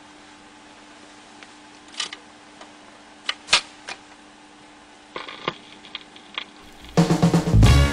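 RCA Victor 45 rpm record changer cycling: a low steady hum under a few sharp mechanical clicks and clunks as a single drops from the stack onto the platter and the tone arm sets down. About a second before the end, the record starts playing loud soul music.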